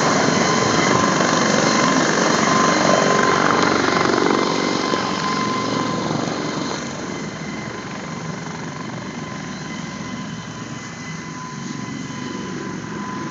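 Dauphin II twin-turbine helicopter moving away after lifting off: a steady turbine whine over the rotor noise, loud at first and fading over the first six or seven seconds.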